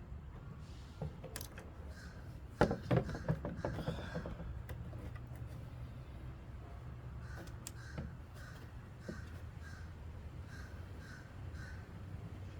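Crows cawing, a run of repeated caws at about two a second through the second half. A cluster of sharp knocks comes about two and a half seconds in, the loudest sounds here.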